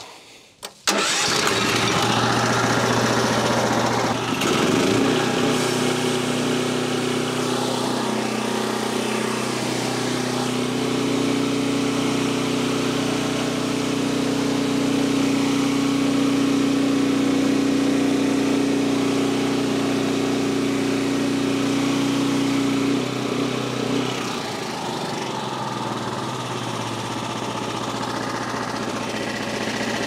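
Frontier OS23 portable band sawmill's 10 hp Briggs & Stratton gas engine starts about a second in, revs up a few seconds later, and runs steadily while the band blade cuts along a log. Near the end the engine note changes and drops slightly.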